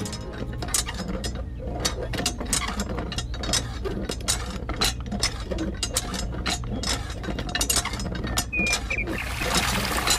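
A small motor-driven mechanism runs with a steady low hum under rapid, irregular clicking and rattling of gears. A hiss comes in near the end.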